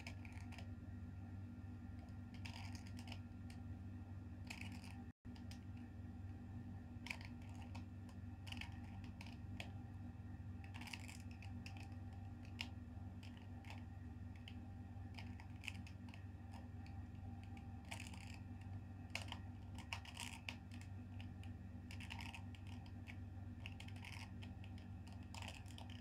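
Hand-turned 2x2 plastic puzzle cube clicking and clacking irregularly as its faces are twisted through a move sequence: the corner-swapping algorithm of the last solving stage. A steady low hum sits underneath.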